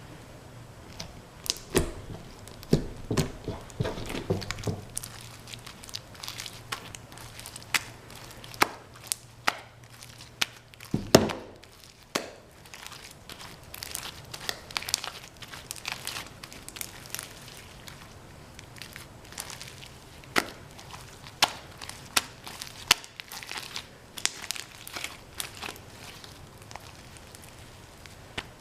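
Foam-bead slime being squeezed and kneaded by hand, giving irregular crackling clicks and pops as the beads are pressed, with a louder pop about eleven seconds in.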